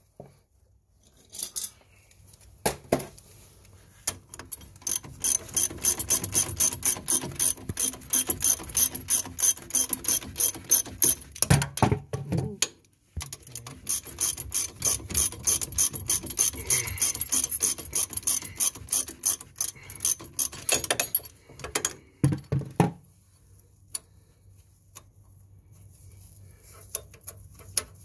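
Ratchet spanner clicking in quick, even strokes as it tightens the brake caliper mounting bolts, after a few metal knocks. The clicking breaks off briefly about halfway and stops about three quarters of the way through.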